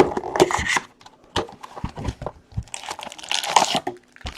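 Plastic packaging crinkling and tearing in two bursts of about a second each, with light clicks and taps between, typical of trading-card boxes and packs being unwrapped.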